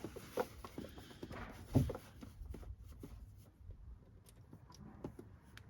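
Faint handling noises from an ATV oil filter being unscrewed by hand: scattered light knocks and clicks, with one louder knock a little under two seconds in.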